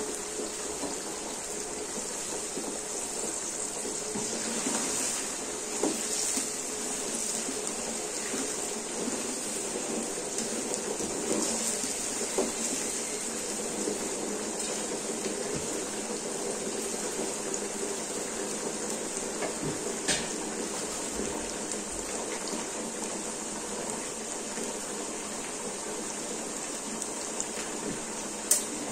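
Green beans sizzling and bubbling in a pan on a gas stove as their water cooks off in the oil, a steady hiss. There are a few light knocks, and a sharp click near the end as the gas burner knob is turned off.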